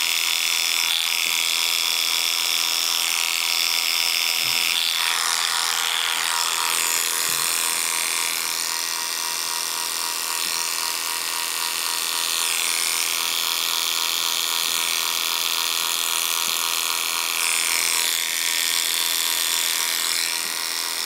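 Rotary-motor hair clipper with a 1A blade running steadily as it clears short hair close to the scalp in short up-and-down strokes. Its buzz shifts in tone a few times as the blade works through the hair.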